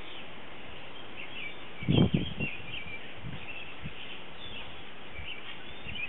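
Small birds chirping faintly and repeatedly over a steady outdoor hiss, with one brief low rush of noise about two seconds in.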